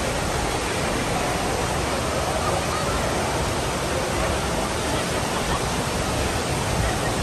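Steady rush of churning water in a waterslide's landing pool, with faint voices over it.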